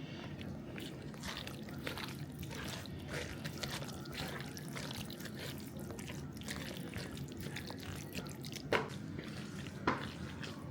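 Kitchen handling sounds: many small, irregular clicks and crackles, with two sharper knocks near the end.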